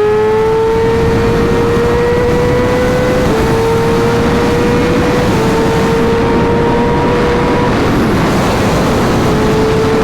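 Inline-four sport bike engine pulling at high revs on the highway, its high tone climbing slowly with two slight dips, then easing off about eight seconds in and picking up again. Heavy wind rush runs underneath.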